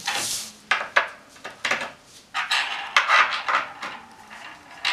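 Loose metal furniture screws and fittings clinking, with short knocks and scraping as a particleboard panel is handled, in an irregular run of clicks and rustles.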